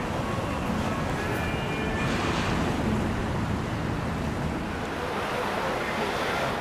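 Steady wash of moving water with a low rumble underneath, as from boat traffic on the river, and wind noise on the microphone.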